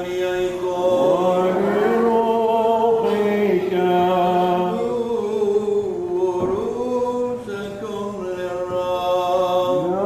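A man's voice singing Orthodox liturgical chant during the baptism rite, in long held notes that step and slide up and down between pitches.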